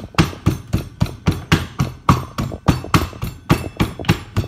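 Potato pieces pounded in a small metal cup with the wooden handle of a kitchen knife used as a pestle: a steady run of sharp, noisy knocks, about three to four a second.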